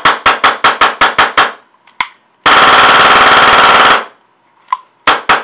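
PolarStar F1 HPA engine in a G&G airsoft rifle test-firing on compressed air. A quick string of about eight semi-auto shots is followed by one more shot, then a full-auto burst of about a second and a half, a single shot, and another rapid string near the end.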